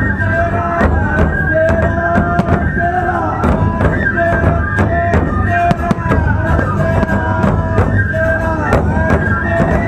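Nebuta festival hayashi music: bamboo flutes playing a repeating melody over taiko drums and densely clanging small hand cymbals.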